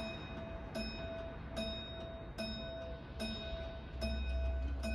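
Electric level crossing warning bell ringing in a steady rhythm, about one strike every 0.8 seconds, each strike ringing on: the crossing's warning sequence before the barriers lower. A low rumble rises under it near the end.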